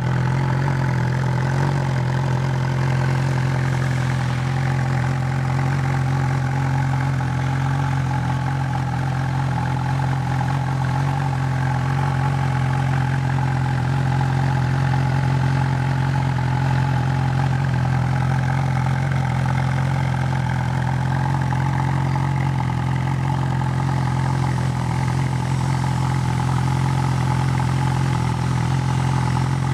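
Honda CB1000R inline-four engine idling steadily through an aftermarket Hurricane Evolution exhaust tip, a loud, deep rumble.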